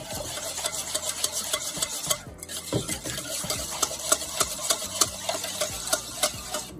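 Small wire whisk beating a thin coconut-milk custard in a stainless steel bowl, its wires rapidly clicking against the metal sides as the sugar and spices are whisked in, with a brief pause a little over two seconds in.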